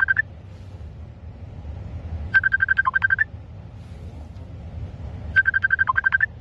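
Electronic ringing tone: a quick run of high beeps broken by one lower beep, repeating about every three seconds, over a steady low hum.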